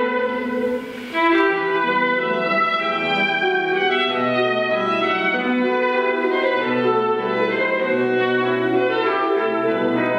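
Orchestral background music: bowed strings and brass holding long, slow notes, with a brief dip in level about a second in.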